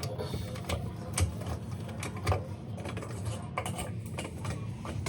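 Small clicks and knocks of a bathroom sink pop-up drain's pivot rod and ball being worked back into place by hand, with two louder knocks about a second in and just after two seconds.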